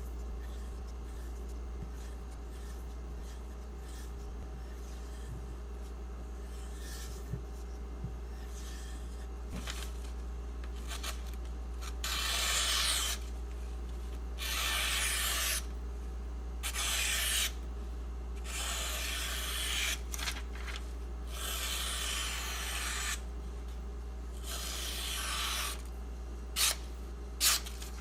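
Spyderco PM2 Maxamet blade stroked along a leather strop loaded with 0.5 micron CBN emulsion: a series of rubbing strokes about a second long each, roughly every two seconds, starting about twelve seconds in. A few sharp clicks come near the end, over a low steady hum.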